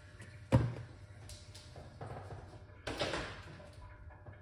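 A sharp knock about half a second in, the loudest sound, then a brief clattering noise about three seconds in.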